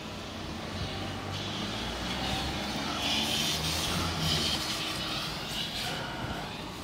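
A motor vehicle engine running, swelling louder about a second in and fading again toward the end, like a vehicle passing.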